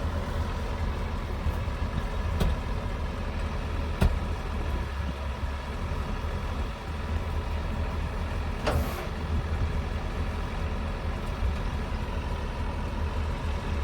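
A vehicle engine running steadily with a low rumble, broken by a few sharp knocks, the loudest about four seconds in.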